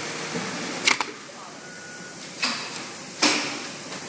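3020 label sewing machine making three sharp mechanical clicks, the last the loudest, over a steady background hum.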